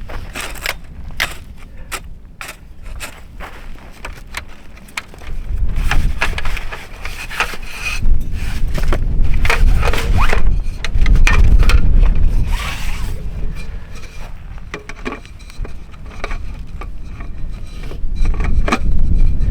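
Irregular knocks and scraping, with a low rumble that comes in about five seconds in and swells and fades.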